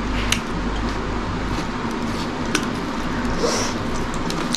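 Eating by hand: fingers mixing rice on a plate and chewing, heard as a few sharp clicks and a brief hiss about three and a half seconds in, over a steady background hum and hiss.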